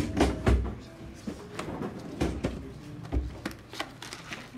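Classroom background noise: scattered, irregular knocks and taps with a few brief, faint voices.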